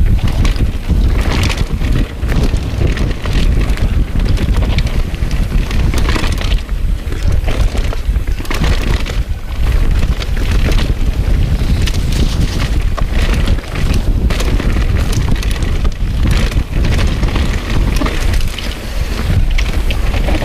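Wind rushing over a chest-mounted action camera's microphone with a steady low rumble, over the rattle of a mountain bike riding down a dirt trail: tyres on dirt and roots, with frequent short knocks and clatters from the bike.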